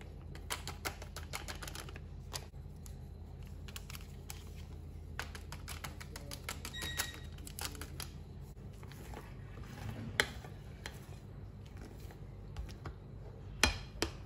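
Small irregular clicks and crinkles of a packet of baking powder being tapped and shaken out over a bowl of batter, then a few sharper knocks of a spoon against the bowl near the end as stirring starts.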